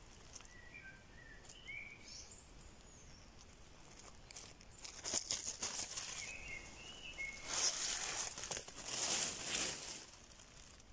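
Dry leaf litter and twigs rustling and crackling as they are handled and disturbed, in bursts about five seconds in and again, loudest, from about seven and a half to ten seconds.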